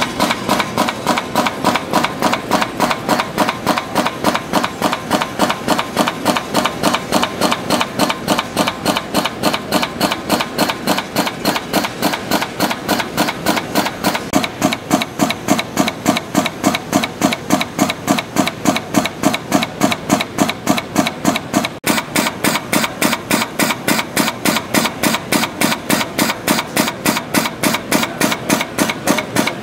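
Pneumatic cutter head of a dual belt tractor feed system shearing thin metal strip into blanks: an even, fast clacking of cuts, several a second.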